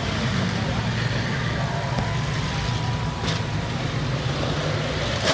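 Demolition derby cars' engines running with a steady low rumble, and a sharp bang about three seconds in and another near the end, as cars hit.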